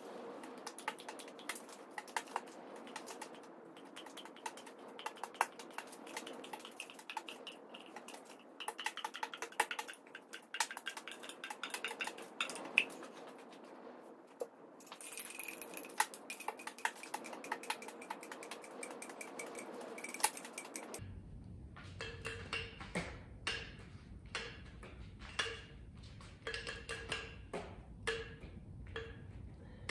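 Rapid, irregular taps and splats of liquid paint being dripped and flung from a cup onto a stretched canvas. About two-thirds of the way through the sound changes to sharper, more widely spaced taps over a low rumble.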